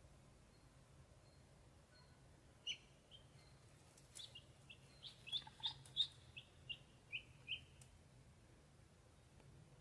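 Ducklings peeping: about a dozen short, high, falling peeps between roughly three and eight seconds in, over a faint steady low hum.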